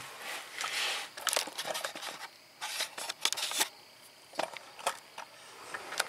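Scattered sharp clicks and short rustling, hissy scrapes, bunched in two clusters: hands and tools handling parts during work under a vehicle.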